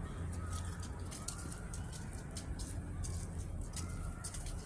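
Outdoor ambience: a steady low rumble under faint bird calls, with short crisp rustles that fit footsteps on a path strewn with dry fallen leaves.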